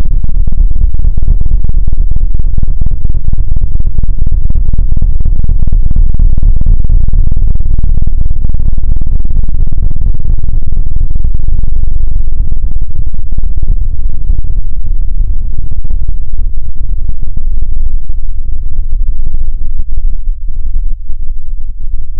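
Heavily slowed-down, distorted sound effect played very loud: a deep, steady rumbling drone, almost all of it in the low bass, held near full loudness and thinning a little with brief dips near the end.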